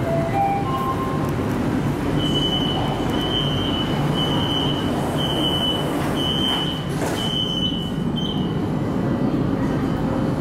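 Metro car door warning on a Hangzhou Metro Line 1 Type B train: a short rising four-note chime, then a high beep about once a second, seven times, as the doors are about to close. A steady low hum of the carriage runs under it.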